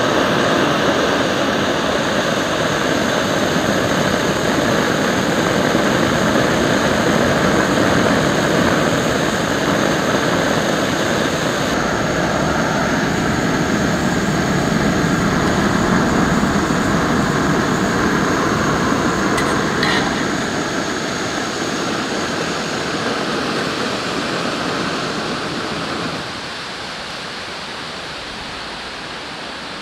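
Small gas backpacking stove burner running under a pot with a steady, loud rushing noise. The noise drops a step about twenty seconds in and again a few seconds later.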